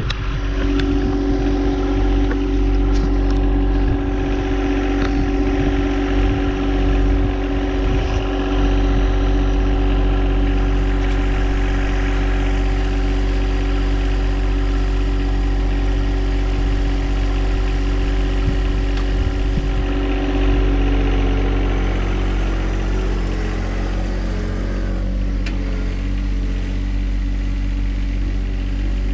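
Tractor engine running steadily under load while pulling a box blade over seeded ground; its note changes slightly about twenty seconds in.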